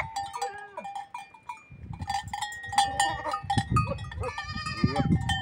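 Goats bleating several times in their pen, the clearest calls coming a little past the middle, with scattered clicks and knocks between them.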